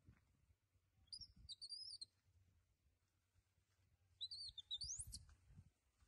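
A small bird singing two short warbling, whistled phrases, about a second in and again about four seconds in, with faint low thumps around the second phrase.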